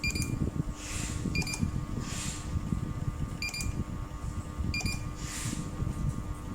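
Electronic buzzer beeping: four short, single high beeps a second or two apart, over a steady low rumble. The beeps fit the ceiling fan receiver's buzzer confirming commands sent to it.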